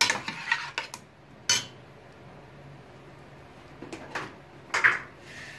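Metal spoon knocking and scraping against a stainless steel pot while chopped green beans are stirred: a cluster of clinks in the first second and a half, then two more near the end, the last one ringing briefly.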